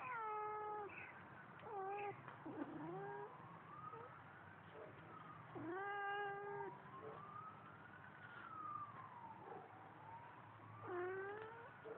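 Domestic cat yowling, which its owner calls singing: four loud, drawn-out calls that fall in pitch, with fainter long calls rising and falling between them.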